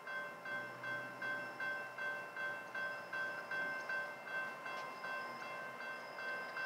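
Railroad crossing warning bell ringing with the crossing activated and gates down, about two and a half strikes a second, each a clear metallic ring. In the second half the strikes run together into a steadier ring.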